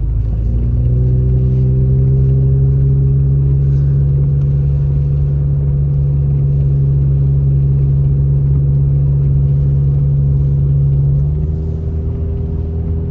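Car engine and road rumble heard from inside the cabin while driving, a steady engine drone. It rises slightly in pitch in the first second, then drops in loudness and changes tone about eleven seconds in.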